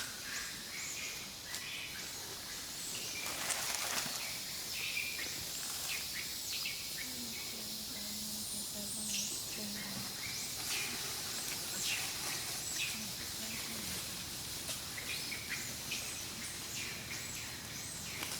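Outdoor ambience: many short, high chirps and squeaks scattered over a steady high hiss, with a brief low hum between about seven and ten seconds in.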